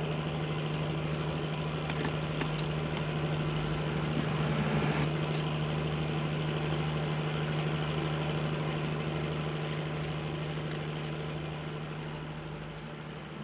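An engine idling steadily: a constant low hum that fades out near the end.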